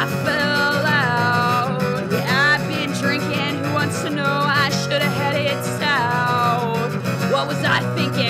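Acoustic guitar strummed steadily, with a high melody line above it that slides and wavers in pitch, held notes and swoops rather than words.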